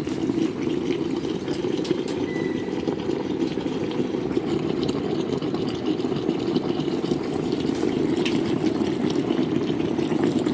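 Garment steamer running, with water boiling and gurgling inside it in a steady rumbling hiss.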